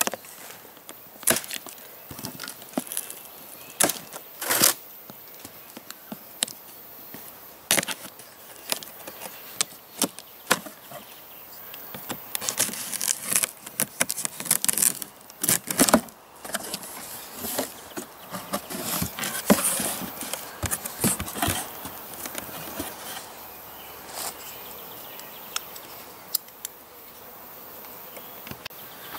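A cardboard shipping box being cut open with a knife: the blade scraping and slicing through packing tape, with cardboard flaps rustling and creasing as they are pulled open, in a string of sharp scrapes and clicks.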